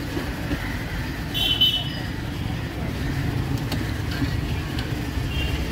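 Steady low rumble of road traffic over the sizzle of bajjis deep-frying in a kadai of oil, with a short high-pitched tone about a second and a half in and again near the end, and a few light clicks.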